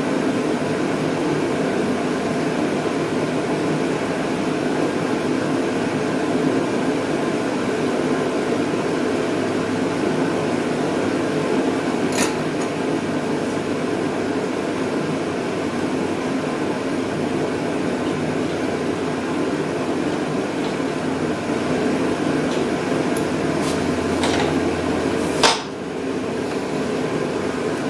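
Steady mechanical hum throughout, with two sharp clicks about 12 and 25 seconds in as a Briggs & Stratton electric starter is tried without cranking the engine over. A dead battery means the starter cannot turn the engine.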